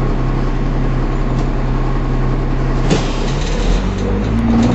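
Dennis Dart single-deck bus's diesel engine running steadily, heard from the driver's cab. About three seconds in there is a sharp click and the engine note drops, then it starts to rise again near the end.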